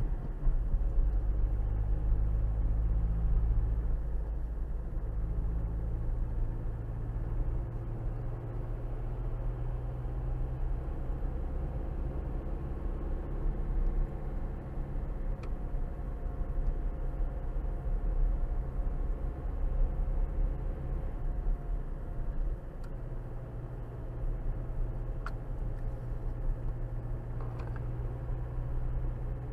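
Car driving, heard from inside the cabin through a windscreen dashcam's microphone: a steady deep rumble of road and engine noise, with a faint engine hum that drifts a little in pitch as speed changes.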